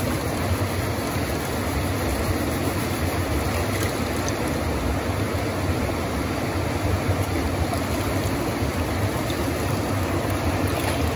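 Steady rushing of a flowing stream, even throughout with no distinct splashes standing out.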